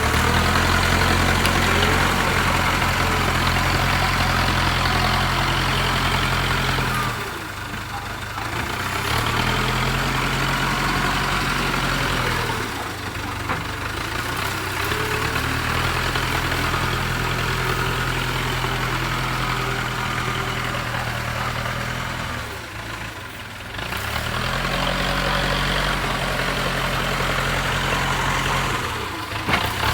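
JCB 3CX backhoe loader's diesel engine running at steady revs. The note drops off several times, for a second or two each, and climbs back up.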